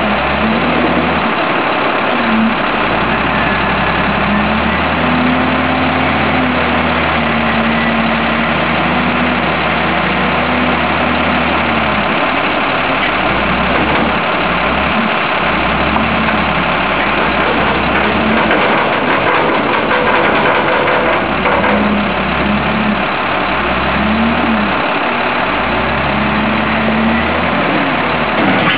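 Volvo L120E wheel loader's diesel engine running while loading a dump truck, revving up and dropping back several times as the machine drives and lifts its bucket.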